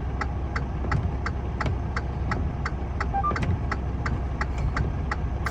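Vehicle engine idling with a steady low rumble while the turn-signal or hazard flasher ticks evenly, about three ticks a second.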